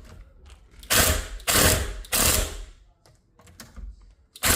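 A screwdriver being worked on a screw in door-handle hardware, in three short bursts of metal-on-metal turning noise starting about a second in and another at the very end; the tool is not gripping well and slips on the screw head.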